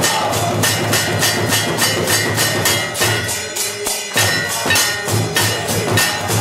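A large brass temple bell rung by hand in fast continuous strokes, about four clangs a second, during aarti, with its ringing tone hanging over the strikes and other percussion clattering along with it.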